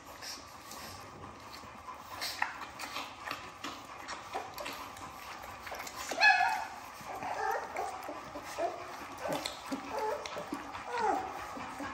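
A litter of four-week-old American bully puppies eating raw ground beef from a steel bowl: wet licking and chewing with small clicks. About halfway through one cries out loudly, then short falling whimpers and yelps follow again and again.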